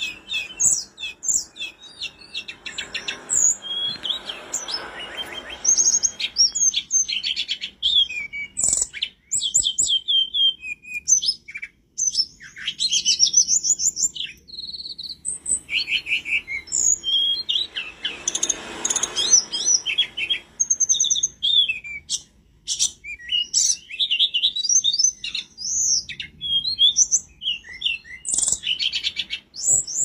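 Hill blue flycatcher (tledekan gunung) singing continuously: a varied run of quick, high whistled phrases and rapid trills with short pauses between them.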